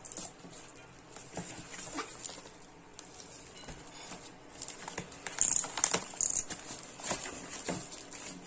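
Plastic film and bubble wrap on a parcel crinkling and rustling as it is handled, in irregular crackles that grow louder for a moment past the middle.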